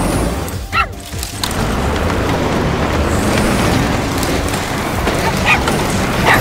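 Cartoon soundtrack: background music over a dense, low, noisy sound effect, with a brief dip about a second in.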